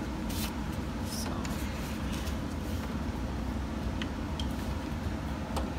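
A few light clicks and taps as a replacement alternator is worked into its mounting in an engine bay, heard over a steady low hum.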